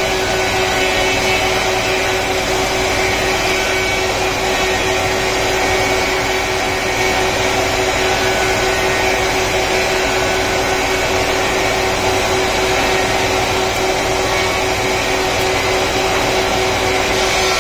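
Four-sided planer (wood moulder) running steadily: a loud, even machine noise with a constant hum.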